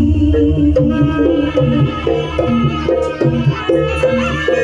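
Javanese jaranan gamelan music played loud through a large speaker stack: short struck metal notes in a quick repeating pattern over hand drumming.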